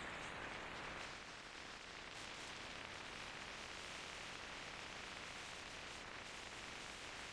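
Faint, steady hiss of wind and road noise from moving along a highway.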